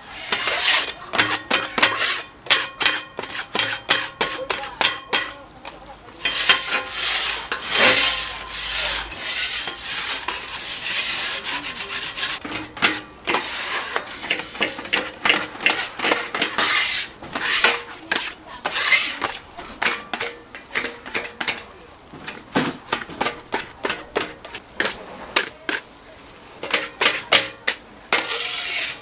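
Metal spatulas scraping and clattering across a large iron griddle in rapid, irregular strokes as pork offal is stir-fried.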